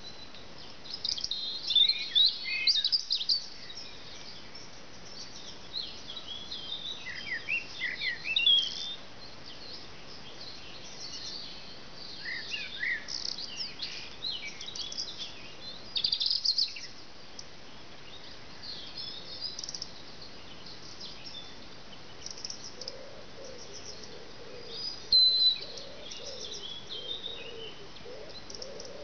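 Garden birds singing and chirping in short, high bursts throughout, over a steady background hiss. A softer, lower call repeats in the last few seconds.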